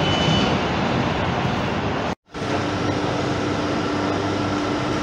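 Rumbling noise from a train that has just run through the platform, cut off abruptly about two seconds in. Then a Thameslink electric multiple unit stands at the platform with a steady electrical hum.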